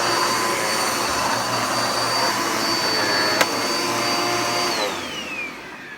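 Vacuum cleaner running steadily with a high motor whine, a single click a little past halfway, then switched off: the motor whine falls in pitch and fades as it spins down near the end.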